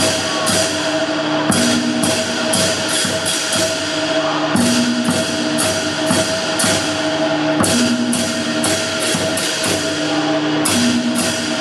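Live traditional Tai-Khamti percussion of a large barrel drum, gongs and cymbals accompanying the rooster dance. Runs of quick, sharp strokes come back about every three seconds over a steady ringing tone.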